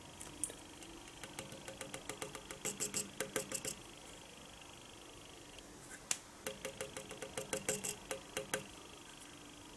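Two runs of rapid small clicks, about eight a second, as a dial test indicator is drawn across the toolmaker's vise's surface, which he judges just a rough surface.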